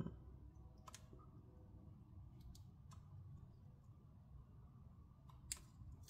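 Near silence broken by a few faint small clicks as the LCD display cable connector of an ASUS ROG Zephyrus M16 laptop is pushed and worked by hand into its motherboard socket. The connector is hard to get back in. The clearest click comes near the end.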